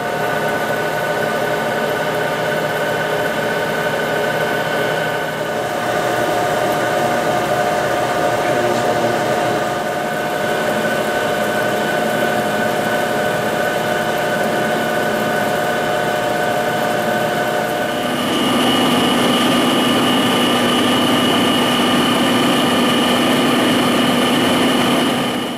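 Herbert No.2 Senior turret lathe running, its spindle drive giving a steady multi-tone whine. The note shifts about five seconds in, then changes to a louder, higher pitch about eighteen seconds in.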